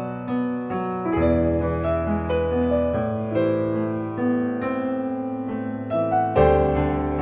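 Background piano music: a slow melody of held notes over sustained bass notes.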